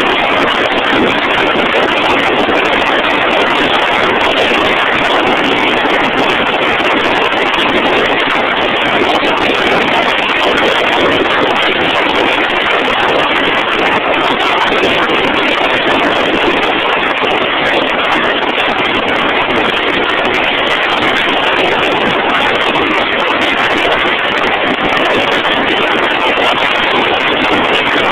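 Steady, loud machinery noise, even throughout with no changes or impacts.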